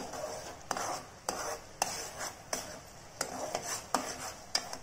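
A metal spoon stirring boiling sugar syrup in a metal pot, knocking against the pot about six times at irregular spacing, over the hiss of the syrup bubbling.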